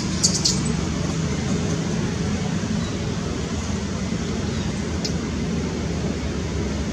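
Steady outdoor background noise, a low rumble with a hiss over it, with a few short high clicks just after the start and one about five seconds in.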